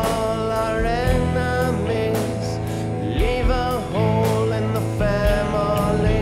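Indie rock song: a male voice singing over electric guitar and a steady drumbeat.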